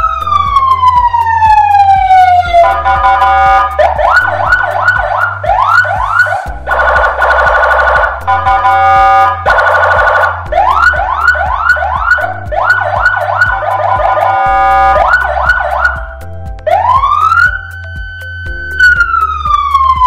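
Senken CJB100BD electronic vehicle siren cycling through its tones. A wail falls away first, then come runs of rapid yelp sweeps and a very fast warble, then more yelps. Near the end a slow wail rises, holds and begins to fall again.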